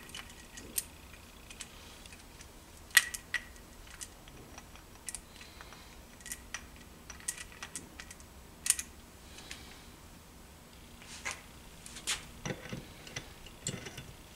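Irregular metallic clicks and clinks of steel transmission gears and shafts being handled and fitted into a Tomos A35 moped engine's aluminium crankcase half, the sharpest clicks about three seconds in and near nine seconds.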